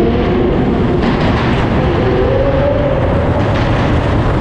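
Car driving through a road tunnel: steady loud road and wind noise, with an engine note that rises in pitch as it accelerates, once at the start and again over the next couple of seconds.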